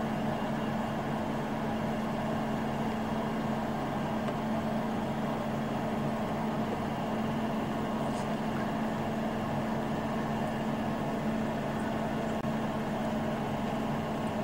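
Steady low hum with a constant hiss underneath, unchanging in level throughout.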